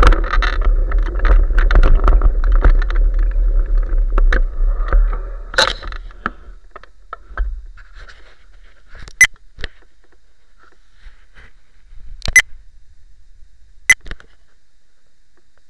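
Rumbling wind and road noise with rattling from a moving bicycle's handlebar-mounted action camera, which dies away about five seconds in as the bike stops. A few sharp clicks and knocks follow.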